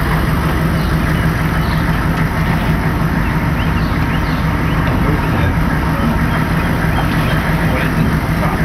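Engine idling steadily, a constant low-pitched running sound with no change in speed.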